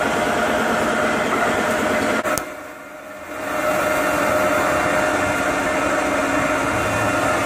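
CNC lathe running while turning a metal part: a steady machine drone with steady whining tones. About two seconds in, the noise breaks off with a sharp click and drops sharply for about a second, then comes back.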